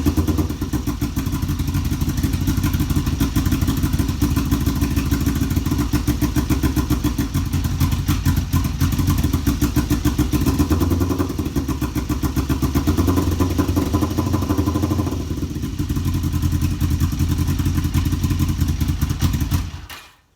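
Kawasaki EX500's parallel-twin engine idling roughly with an uneven pulsing beat, on its first start after sitting for a couple of years. The sound cuts off suddenly near the end.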